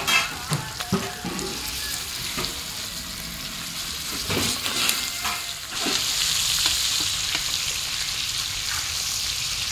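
Masala-coated Indian mackerel sizzling in hot oil on a large flat iron pan, with a few knocks in the first second and again around four to six seconds in as pieces are laid into the oil. The sizzle grows louder about six seconds in.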